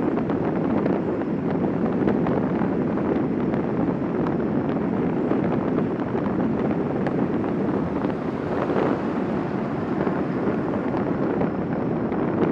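Steady wind rush over the microphone and rolling noise from a Quest velomobile going downhill at speed.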